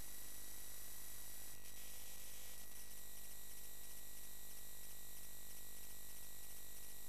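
Steady electrical hum and buzz under an even hiss, with a thin high whine; a faint change in the noise about one and a half and two and a half seconds in. This is line noise with no program sound.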